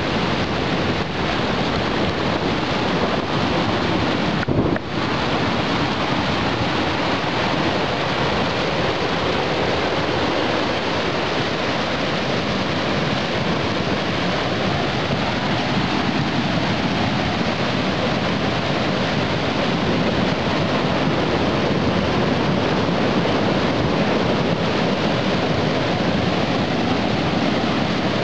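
Post-fire flash flood: a dark, muddy debris flow rushing down a rocky streambed, a steady, loud rush of water.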